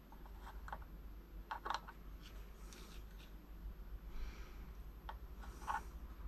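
Faint small clicks and light taps of a soldering iron and connector pins being handled during soldering work, with a few soft hissy puffs over a low steady hum.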